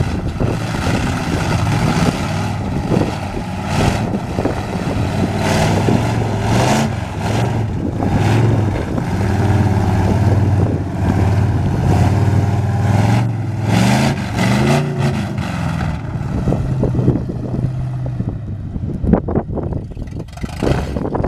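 Monster truck engine running and revving up and down several times, fading as the truck moves away near the end, with wind buffeting the microphone in the last few seconds.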